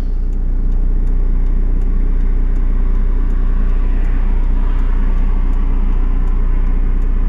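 Volkswagen Passat's engine idling, heard from inside the cabin as a steady low rumble. A rushing noise from passing traffic swells and fades around the middle.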